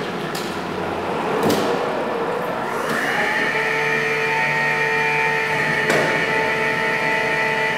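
BT CBE 2.0T electric forklift running: a shifting motor hum as the truck manoeuvres. About three seconds in, the hydraulic pump motor starts with a quick rise in pitch and then holds a steady whine as the mast lifts the forks. A few sharp clicks are heard.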